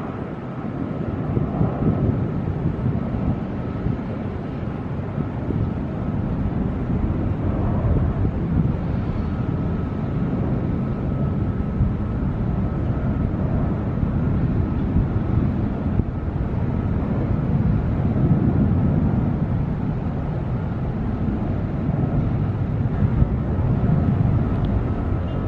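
Twin-engine jet airliner climbing out just after takeoff, its engines a steady low rumble heard from a distance, mixed with wind noise on the microphone.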